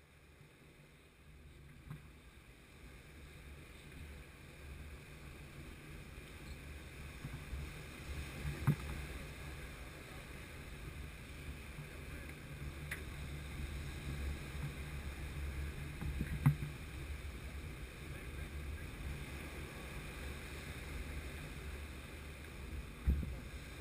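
Steady low wind rumble on the microphone over breaking surf, fading in over the first few seconds, with a few short sharp knocks.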